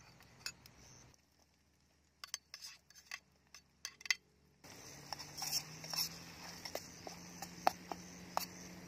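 Cooking utensil clinking and tapping against a cooking pot as garlic is stirred in, a scatter of sharp clicks. Insects chirp steadily in the background.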